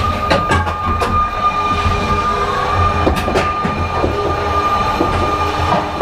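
Roller coaster train rolling slowly through its brake run into the station, heard from on board: a steady high whine that steps up slightly in pitch twice, over a low rumble, with scattered clicks and knocks from the wheels on the track.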